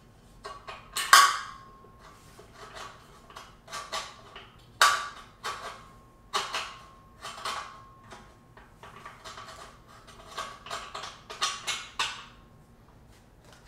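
Steel parts of an adjustable weight bench frame being handled and fitted: irregular metal clanks and knocks, each with a brief ringing note, the loudest about a second in.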